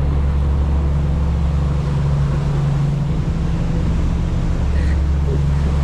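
Motorboat engine running steadily under way: a loud, even low drone with a rush of wind and water over it.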